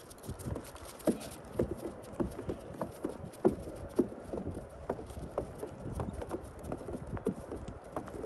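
Footsteps crunching in snow on a snow-covered wooden boardwalk at a steady walking pace, about two steps a second.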